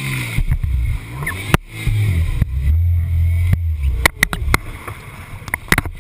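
Racing jet ski engine running, its pitch dropping just after the start and settling into a low steady drone mid-way, then a run of sharp knocks and splashes of water against the helmet camera near the end.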